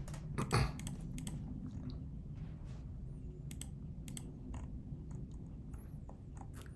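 Computer keyboard keystrokes and clicks, irregular and scattered, a few louder ones in the first second, over a low steady hum.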